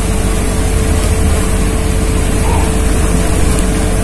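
Eggs and potatoes boiling hard in water in a steel pot: a steady boil with a low rumble.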